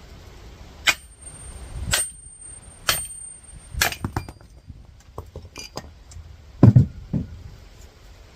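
Hammer striking the back of an axe that is being driven through an electric motor's steel stator: four sharp metal clangs about a second apart, each with a brief high ring. Lighter knocks follow, then a heavier dull thump near the end.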